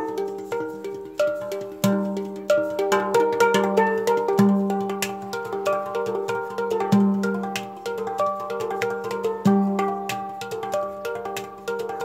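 Handpan played with the hands: a low note struck about every two and a half seconds, with quicker ringing higher notes in between.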